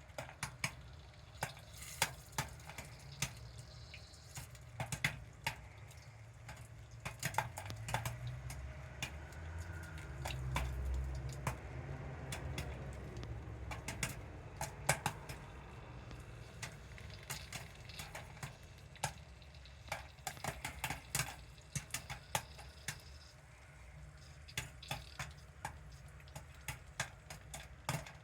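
Popcorn kernels popping as they heat: irregular sharp pops scattered throughout, some much louder than others, over a steady low hum.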